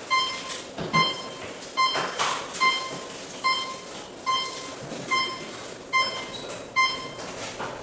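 A short, high electronic beep repeating evenly, a little faster than once a second, over background room noise.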